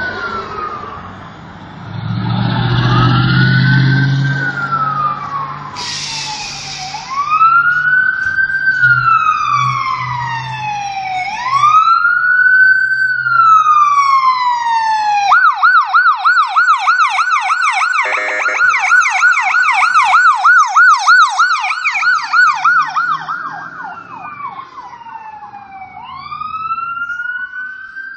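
Electronic sirens of an ambulance and a fire engine on an emergency response: a slow rising-and-falling wail, switching about fifteen seconds in to a fast yelp for several seconds, then back to the wail near the end. A low steady drone sits under the wail through the first half, with a short hiss about six seconds in.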